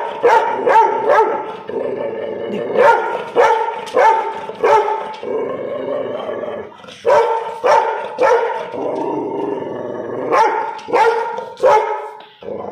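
A chained young dog barking over and over in runs of three or four sharp barks. Between the runs it keeps up a drawn-out, howling whine.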